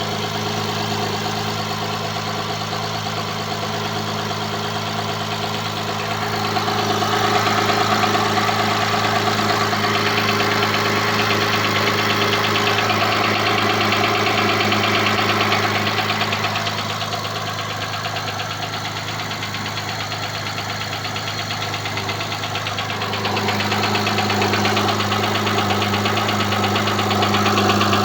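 Honda/Acura car engine running steadily at idle with a rapid knock in it, the knocking that the owner is complaining of. It grows louder twice without the engine's pitch changing.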